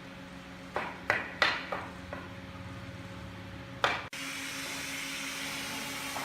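Six sharp knocks of wood being struck or set down in a woodworking shop, each ringing briefly, over a steady hum. About four seconds in, the sound cuts abruptly to a steady hiss.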